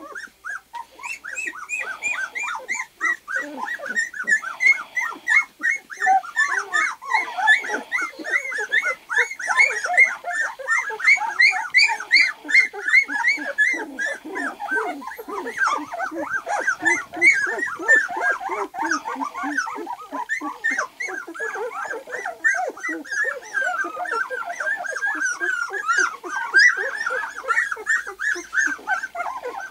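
A litter of two-week-old white golden retriever puppies crying together: many short, high calls overlapping without a break.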